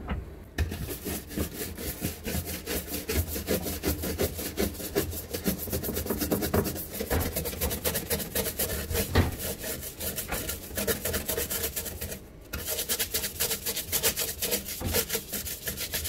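Dish brush scrubbing the plastic wall of a refrigerator drawer, wet with spray cleaner, in rapid back-and-forth strokes to lift stuck-on grime. The scrubbing starts about half a second in and breaks off briefly about twelve seconds in.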